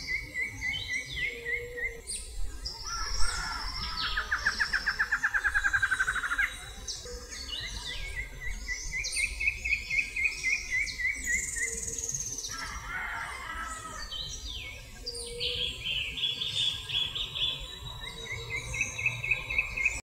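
Several wild birds singing and calling at once: repeated series of chirped notes, high thin whistles, and a loud, fast trill between about three and six seconds in.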